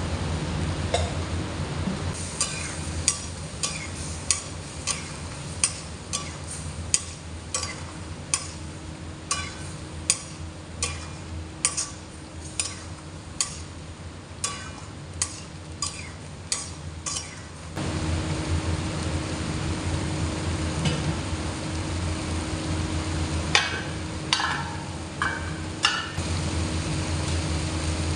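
Spoon stirring chicken karahi in a metal karahi pan, knocking and scraping against the pan two or three times a second for about fifteen seconds, over a steady low rumble and the sizzle of the simmering curry. A few more scrapes come near the end.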